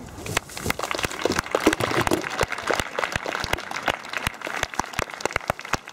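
Audience applauding after the music ends, the clapping thinning out to scattered single claps toward the end.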